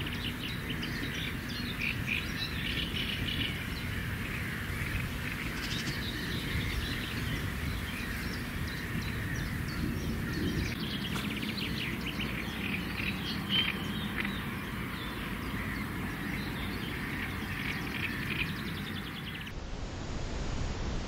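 Several wild birds singing and chirping, many short high calls over steady low background noise. The birdsong cuts off suddenly near the end.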